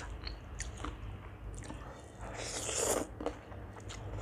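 Close-miked mouth sounds of eating tam sua (spicy papaya salad with rice noodles): soft chewing and small mouth clicks, with a breathy hiss of sucked-in air lasting under a second about halfway through.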